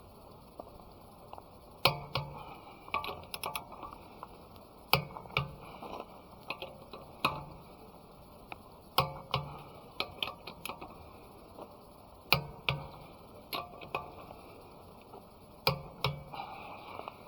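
Sharp metallic clicks with a short ring after each, many coming in pairs, every second or two: hand tools working on a car wheel during a tyre change.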